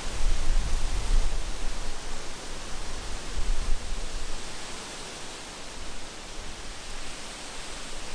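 Wind rushing past the microphone, with gusts buffeting it in a deep, uneven rumble.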